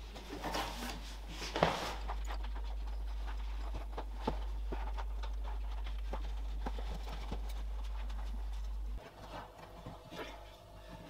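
Scattered light knocks and clicks over a steady low hum; the hum cuts out suddenly about nine seconds in.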